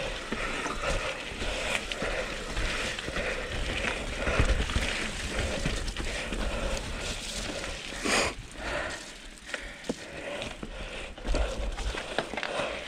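Mountain bike riding down a rough dirt singletrack: tyres crunching over dirt and roots, with continual small rattles and knocks from the bike and a low rumble. A sharper knock comes about eight seconds in.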